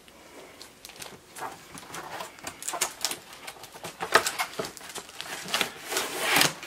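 Plastic-wrapped packaging being handled: crinkling and rustling with scattered light taps, loudest about four seconds in and again near the end.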